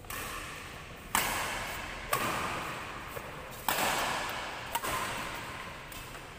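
Badminton rackets striking a shuttlecock in a rally, about five sharp hits roughly a second apart, each ringing out in the hall's echo.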